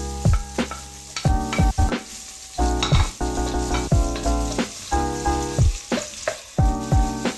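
Background music with a steady drum beat, sustained chords changing about every second.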